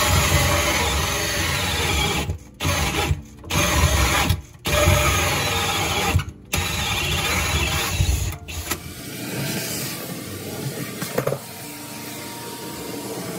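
Cordless drill spinning a hole saw through a cabinet panel, stopping and restarting several times in short runs. After about nine seconds, a quieter, steadier vacuum runs as its hose sucks up the sawdust.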